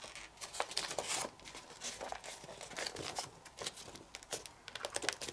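Sheet of printer paper rustling and crinkling between the fingers as its layered folds are pinched and creased: a run of small, irregular crackles.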